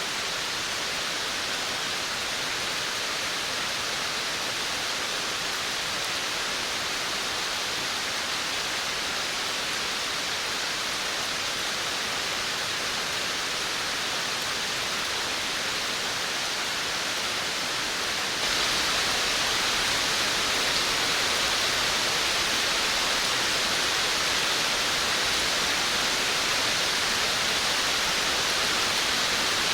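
Steady rain falling on a veranda, an even hiss of drops. About two-thirds of the way in it suddenly grows louder and brighter.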